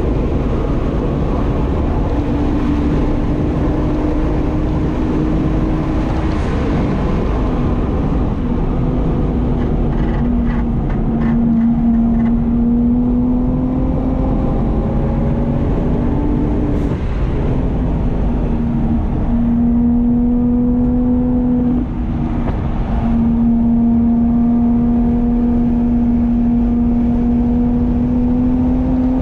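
2009 BMW 135i's twin-turbo N54 inline-six running hard on track, heard from inside the cabin through its Berk race exhaust. The engine note climbs slowly and drops back a few times, with a brief break near the middle.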